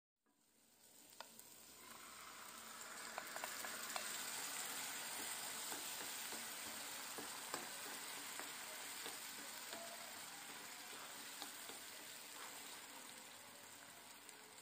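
Grated tomato sizzling in a frying pan over fried onions, stirred with a wooden spoon that clicks lightly against the pan now and then. The sizzle fades in over the first couple of seconds.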